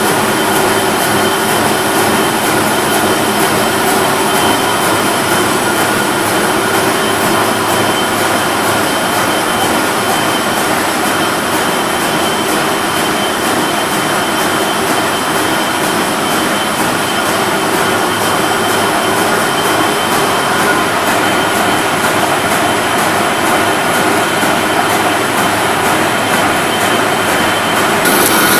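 Wolf paper sheeter with inline printing unit running at speed: a steady, loud mechanical clatter with a fast, even rhythm and a steady whine over it.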